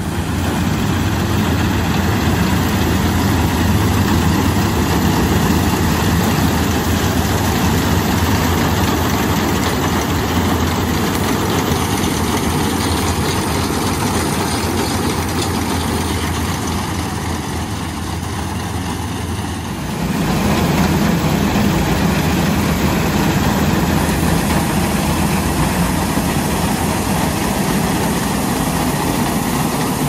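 Sant combine harvester running under load while cutting and threshing wheat: a steady heavy engine drone with dense mechanical noise from the header and threshing works. The sound changes and grows a little louder about two-thirds of the way through.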